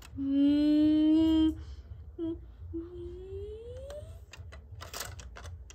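A voice making toy sound effects: a steady hummed note for about a second and a half, a short blip, then a hum that slowly rises in pitch. Near the end come a few light clicks of plastic LEGO pieces being handled.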